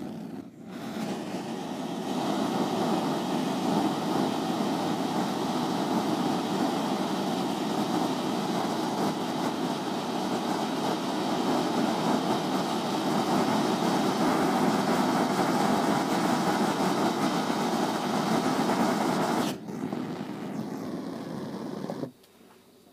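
Homemade petrol-air jeweller's torch, fed with compressor air passed through gasoline, burning with a steady hiss while its flame melts a small piece of copper. The hiss starts about a second in, drops suddenly near the end and stops shortly before the end.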